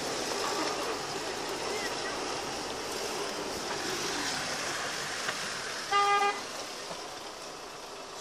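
A vehicle horn gives one short toot about six seconds in, over a steady background of engine and road noise heard inside the cab.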